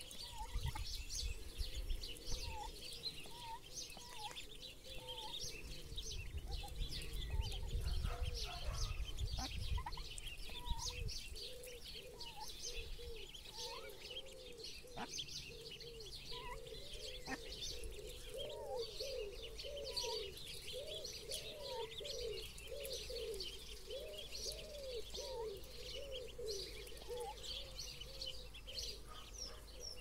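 Ducklings peeping constantly as they feed, in many short, high chirps. A low rumble sits under the first third. From about halfway, a lower, repeated soft call joins in for roughly ten seconds.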